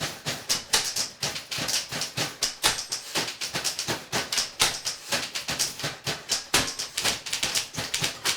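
Several typewriters played together as rhythm instruments: a dense, rhythmic clatter of keystrokes, several strikes a second in a steady pattern.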